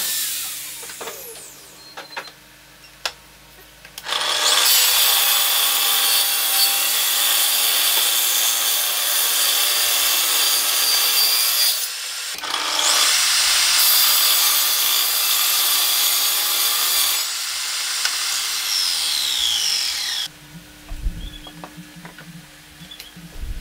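Table saw cutting through a hardwood board: a loud, steady cutting noise for about eight seconds, a brief dip, then a second stretch of cutting for about five seconds. After that the saw runs on more quietly, and its pitch falls as it winds down, ending about twenty seconds in.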